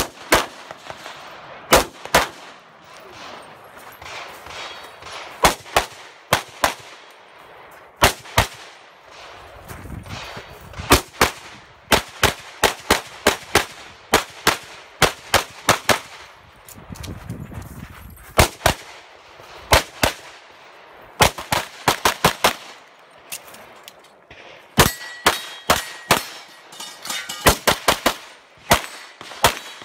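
Handgun shots fired fast in close pairs and quick strings, with short breaks between groups of shots, as in a practical-shooting stage run.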